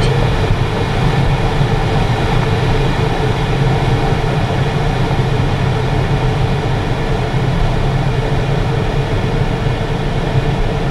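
Glider on its takeoff roll, heard from inside the cockpit: a loud, steady rumble of the wheel on the runway and rushing air, with a faint steady hum underneath.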